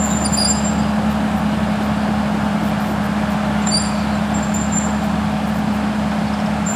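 Crawler bulldozer's diesel engine running steadily under throttle as the machine is driven, a constant low drone over broad mechanical noise, with brief faint high squeaks near the start and about four seconds in.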